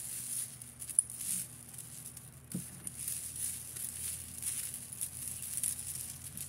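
Costume-jewelry necklace chains and beads clinking and rustling as they are handled and untangled, with irregular light jingles and one sharp click about a second in.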